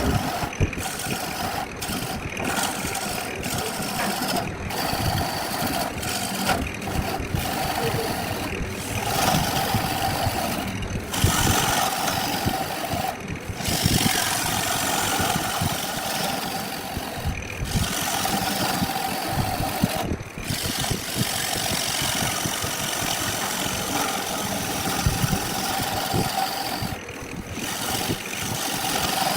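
Wood lathe running while a turning tool cuts the spinning wood: a steady, noisy whir with a constant hum, broken by brief dropouts several times.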